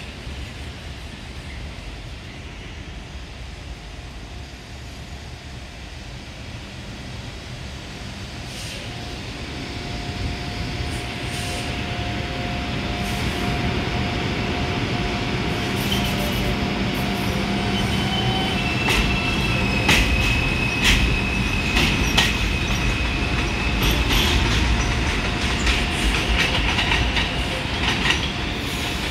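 A New York City subway 4 train of R142-series cars approaches and passes on elevated track, growing louder from about a third of the way in. A steady whine comes first, then clattering wheels on the rails and a high wheel squeal through the second half.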